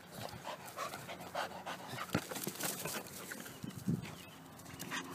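Pit bull terrier panting during play, with a single sharp knock about two seconds in.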